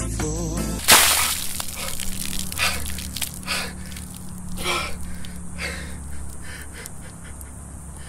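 Background music cuts off about a second in as a bucket of tea is dumped over a man and splashes onto the asphalt. He then gasps and pants repeatedly, the gasps growing fainter.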